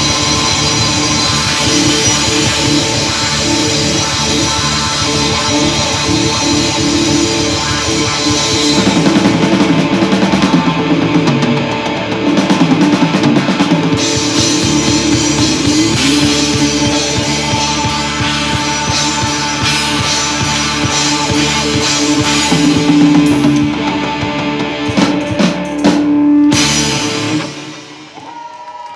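Live rock band playing an instrumental passage: distorted electric guitar, bass guitar and drum kit. Near the end a few last drum hits close the song and the band stops suddenly.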